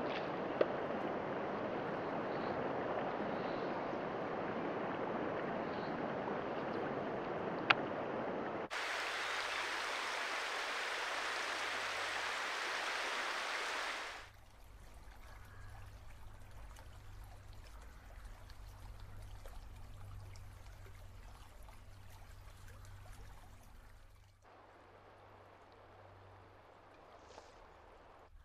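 A trout creek flowing: a steady rush of running water that changes abruptly at several cuts and drops much quieter about halfway through. Two sharp clicks sound in the first few seconds.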